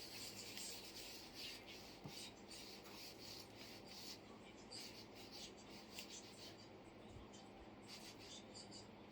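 Faint, irregular scratching and rustling: a run of short scrapes on a surface over a low background hum.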